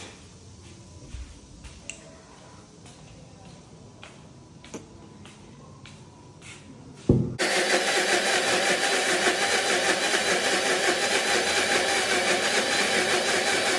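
A few light clicks and knocks, then about halfway through a kitchen mixer grinder switches on with a thump and runs loudly and steadily, blending a banana shake.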